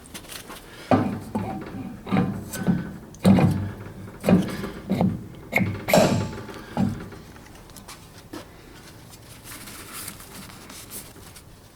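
Knocks and clunks of an expander wheel being handled and pushed onto a bench grinder's oiled shaft: about eight separate knocks in the first few seconds, then quieter handling with a faint rustle.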